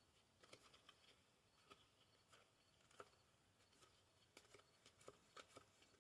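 Faint, irregular soft clicks and taps of a deck of linen-finish playing cards being handled.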